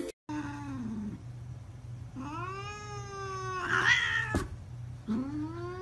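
Domestic cat giving long, drawn-out warning yowls, three in all, with a short harsh outburst about four seconds in and a sharp knock just after it.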